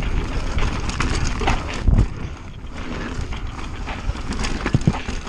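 Mountain bike riding fast down a dirt trail: tyres running over dirt and the bike rattling and clattering over rough ground, with a heavy thump about two seconds in.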